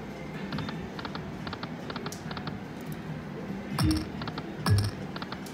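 Video slot machine's game sounds as the reels spin: a run of short, quick electronic ticks, with two deep thuds falling in pitch, a little under a second apart, near the end.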